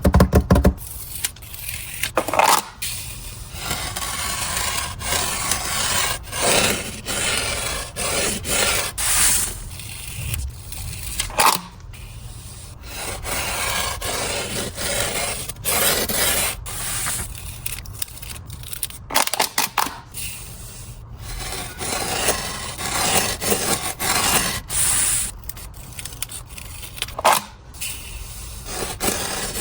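Sand being pushed and swept by hand across a drawing surface: irregular scraping and rubbing strokes, some short and sharp, others longer and softer.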